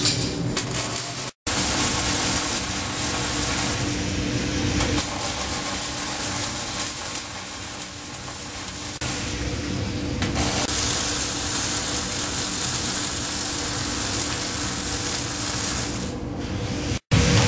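Robotic arc welding: the welding robot's arc hissing and crackling steadily, with a low machine hum underneath. The sound drops out for an instant twice, about a second and a half in and near the end.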